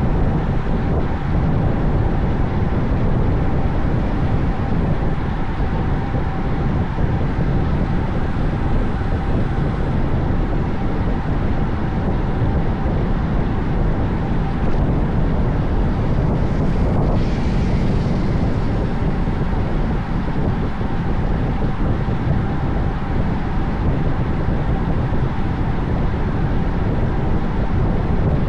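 Steady wind rush on the microphone of a bicycle riding at speed, with road noise underneath and a faint steady whine. A brief swish comes about two-thirds of the way through.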